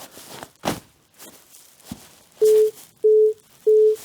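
Three short, identical beeps at one steady mid pitch, evenly spaced about two-thirds of a second apart in the second half: a recording countdown cue for a Foley take. A couple of faint rustles and soft knocks come before them.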